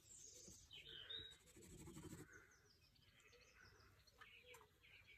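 Near silence, with faint bird chirps in the background.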